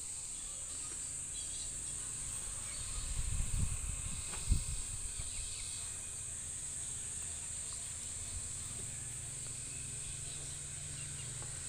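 Steady high-pitched insect chirring, with a few low thumps about three to four and a half seconds in.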